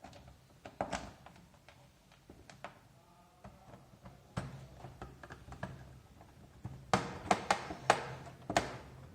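Small plastic clicks and taps from handling the parts of an old computer keyboard being taken apart, scattered at first, then a quick run of sharper, louder clicks about seven seconds in.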